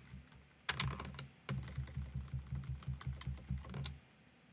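Computer keyboard typing: a quick, even run of keystrokes that starts just under a second in and stops about a second before the end.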